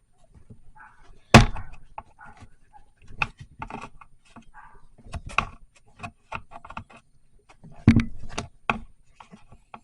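Hard plastic clicks and knocks from pushing and prying on the release tabs of a Shad SH37 motorcycle top box's lock set. A sharp knock comes about a second in, a cluster of knocks a little after halfway, and another sharp knock near the end.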